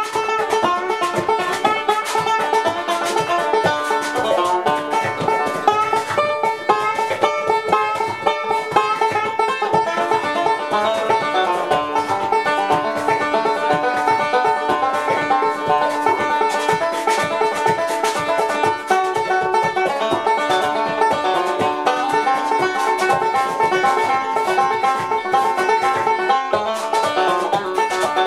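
Five-string banjo picked in a fast, continuous bluegrass roll, notes coming thick and steady.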